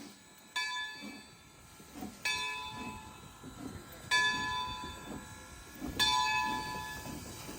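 Steam locomotive's bell ringing, struck four times at about one strike every two seconds, each ring dying away before the next: the warning rung as the train gets ready to move.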